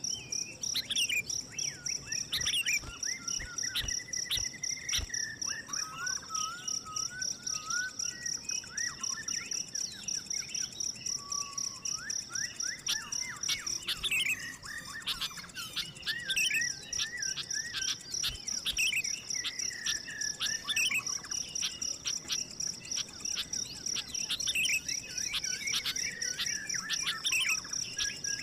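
Several birds chirping and calling in quick rising and falling notes over a steady, high, rapidly pulsing insect trill that breaks off briefly about halfway through.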